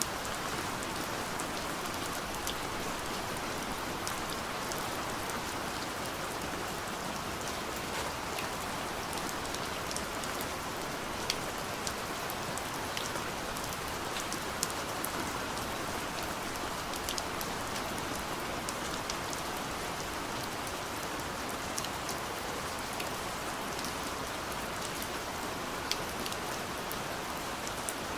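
Steady gentle rain falling on a window, a continuous hiss with scattered light taps of individual drops.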